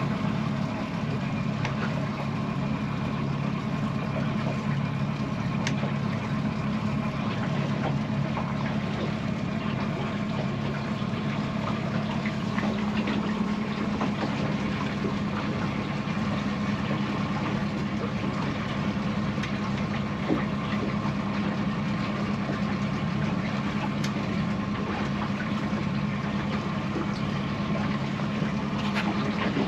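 Boat motor running steadily at a constant pace, an even hum.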